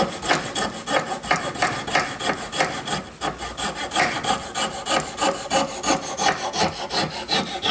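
Jeweler's saw, a small coping-type frame saw, cutting through wood in quick, even back-and-forth strokes, about three a second, as it cuts out the waste of a dovetail.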